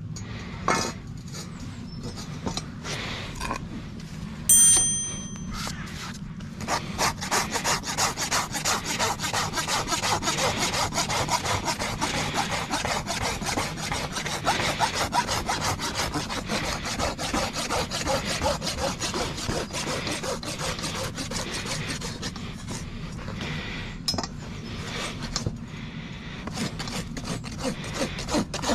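Farrier's hoof rasp scraping across a hoof in quick, repeated strokes, starting about a quarter of the way in and easing off near the end. Before the rasping there are a few light knocks and one ringing metallic clink.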